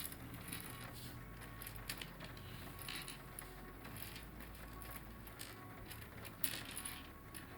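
Small plastic LEGO pieces being sorted by hand: faint, scattered clicks and light clatter, with a slightly busier patch near the end.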